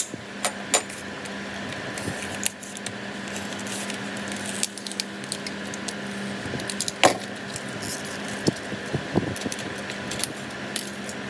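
Plastic packet of reed petals being cut open with a utility knife and peeled apart by hand: scattered crinkles and small clicks, one sharper click about seven seconds in, over a steady background hum.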